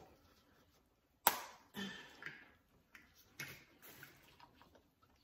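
Crab being eaten close to the microphone: a sharp snap of shell about a second in, then wet chewing and smacking with a few small clicks.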